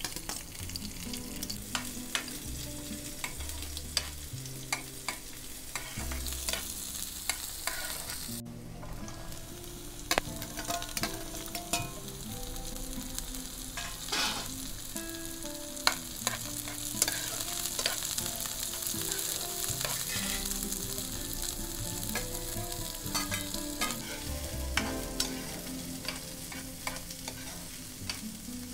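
Chopped onion, garlic and vegetables sizzling in hot oil in a non-stick frying pan, with a metal spoon scraping and clicking against the pan as they are stirred.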